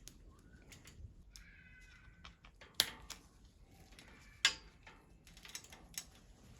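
Light metallic clicks and clinks of bicycle parts being handled during assembly, with two sharper knocks about three and four and a half seconds in and a brief squeak between.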